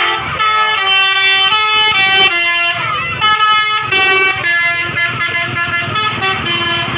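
Indonesian 'telolet' bus horn, a multi-tone musical horn, playing a tune of held notes that change pitch about every half second.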